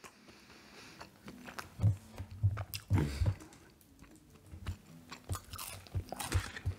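Close-miked chewing of McDonald's fast food: irregular bites and chews with small clicks of the mouth.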